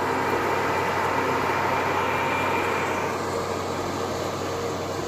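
Combine harvester running steadily, a hum with a steady whine over it; the higher part of the noise drops off about three seconds in.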